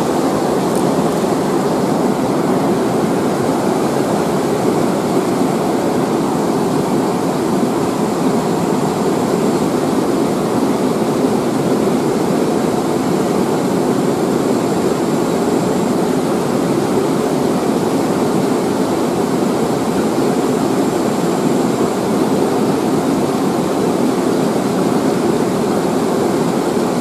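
Steady, unbroken rush of fast-flowing river water tumbling over rocks.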